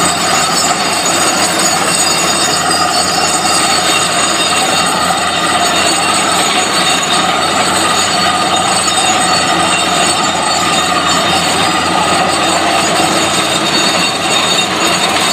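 Borewell drilling rig drilling a water well: a loud, steady mechanical din with several high whining tones held over it, unchanged throughout.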